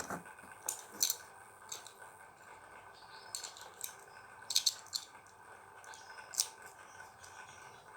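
Scattered soft clicks and brief rustles, about seven or eight spread unevenly, from small objects being handled over a faint steady hiss.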